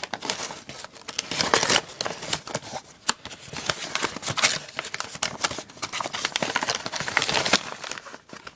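A cardboard box and its packaging being opened and handled by hand: irregular rustling, crinkling and scraping with scattered sharp clicks.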